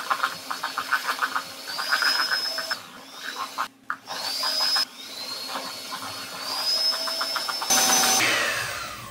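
Electric hand mixer whipping coffee buttercream in a stainless steel bowl, its beaters ticking rapidly against the mix and bowl. The motor whine rises each time it picks up speed and drops out briefly twice, then winds down with a falling pitch near the end.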